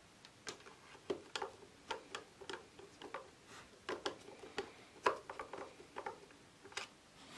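Irregular light clicks and taps of a portable fan heater's plastic casing being handled and fitted together during reassembly, about two or three a second.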